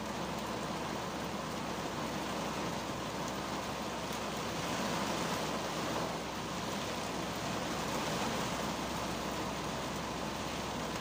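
Heavy rain falling on the roof and windshield of a 2010 Kia Cerato, heard from inside the cabin: a steady, even hiss that swells a little midway.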